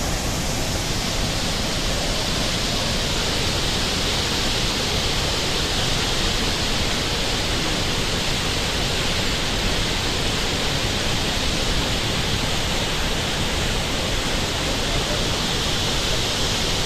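Steady rushing of water from the Chitrakote waterfall in monsoon flow, an even, unbroken wash of noise.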